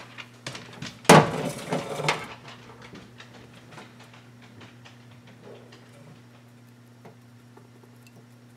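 Glass mixing bowl knocking and scraping on a stainless steel counter as it is lifted: one loud clatter about a second in that dies away over a second, then faint light ticks and brushing. A steady low hum runs underneath.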